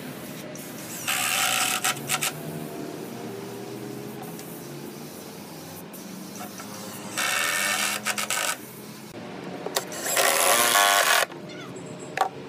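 Cordless drill running into hardwood boards in three short runs of about a second each: about a second in, past the middle, and about ten seconds in. Each run ends with a few short clicks.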